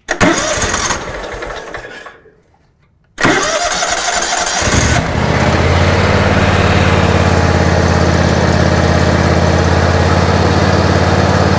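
2006 John Deere X320 riding mower being key-started: the starter cranks for a couple of seconds, stops, then cranks again with a rising whine until the engine catches about five seconds in and settles into a steady idle. The engine now keeps running, the stalling cured by a new electronic control module.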